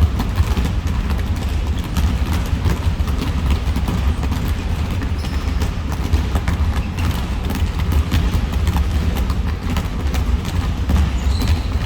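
Basketballs bouncing on a hard gym floor, with scattered knocks and footfalls and a couple of brief sneaker squeaks, over a steady low rumble.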